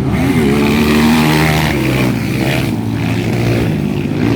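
Several 200 cc motocross bike engines revving together, their pitches rising and falling as the riders work the throttles.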